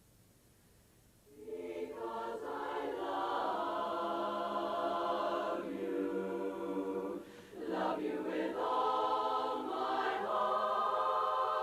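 Women's barbershop chorus singing a cappella in close harmony. The full chorus comes in strongly a little over a second in after a near-silent pause, with a brief drop for a breath about two-thirds of the way through.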